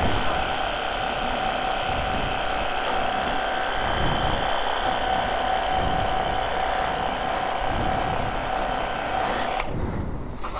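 Cordless battery pressure washer running, its pump motor giving a steady whine over the hiss of the water jet as it sprays. It cuts off sharply near the end when the trigger is released.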